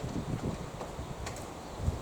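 Strong wind buffeting the microphone in uneven low gusts, with a faint tick about a second in.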